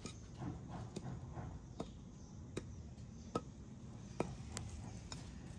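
Light taps and knocks of a wooden stick on artificial turf as a kitten bats at it, with four sharper taps evenly spaced a little under a second apart.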